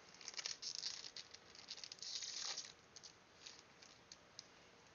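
Trading-card booster pack being torn open: faint crinkling and tearing of the wrapper in two short stretches, then a few light ticks as the cards are handled.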